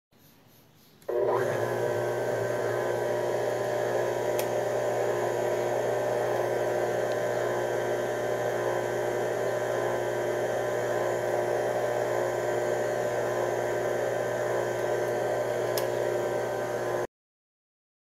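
A steady electric hum with a noisy whir over it, like a small machine running, starting abruptly about a second in and cutting off abruptly near the end.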